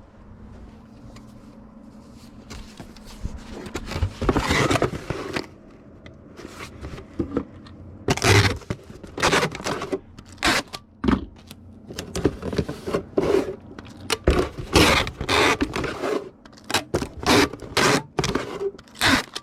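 A cardboard shipping box being handled and folded into shape: a run of irregular scrapes and rustles of cardboard. It is faint at first and grows busy and louder from about four seconds in.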